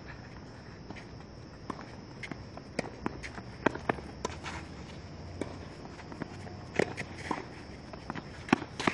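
Tennis rally on a clay court: sharp racket-on-ball strikes going back and forth at irregular intervals, with the players' footsteps scuffing on the clay between them.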